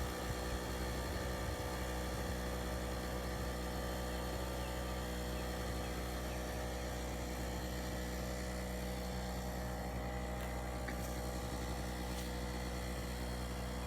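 Small 800-watt portable generator engine running steadily, a constant hum heard from some 50 to 70 feet away.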